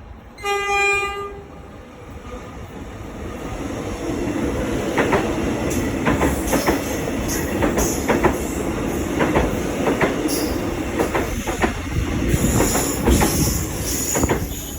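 Metro X'Trapolis electric train sounding one short low-note horn blast about half a second in, then passing at speed: a rush of wheels on rail that swells over the next few seconds, with repeated clicks as the wheels cross the rail joints.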